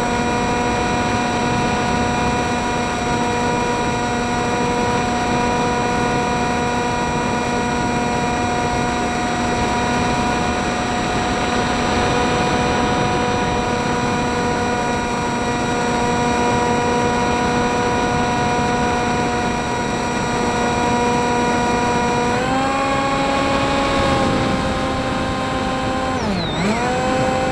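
FPV model plane's motor and propeller whining at a steady pitch, with wind rushing past the airframe. A little over three-quarters through, the pitch steps up as the throttle opens; near the end it dips sharply and climbs back.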